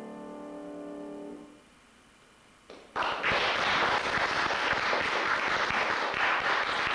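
A final chord on a grand piano dies away, followed by a short hush. About three seconds in, audience applause breaks out and keeps going steadily.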